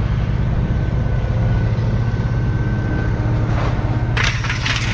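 Vehicle engine running steadily at idle, with a short clatter of scrap metal being unloaded about four seconds in.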